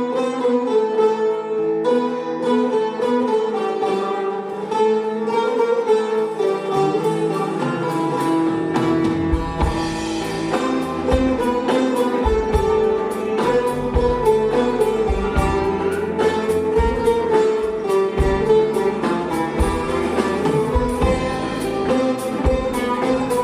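Instrumental ensemble music led by plucked string instruments, with bowed strings, playing a Turkish folk tune; low drum beats join about nine seconds in.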